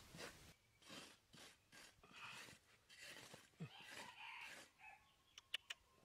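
Faint scraping and rustling of hands working sandy soil, in a string of short strokes, with two sharp clicks close together near the end.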